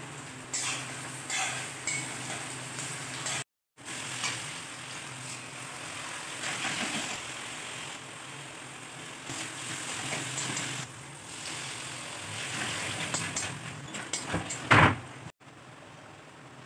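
A metal spatula scrapes and stirs frying onions, tomatoes and spices in a metal wok, in short repeated strokes over a soft sizzle, with one loud scrape near the end. The sound cuts off briefly twice.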